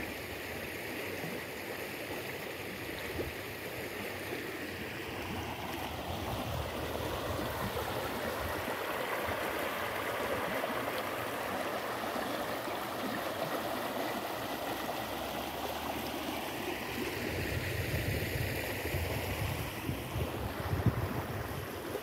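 Shallow stream running over rocks: a steady rushing and rippling of water, growing somewhat louder about six seconds in.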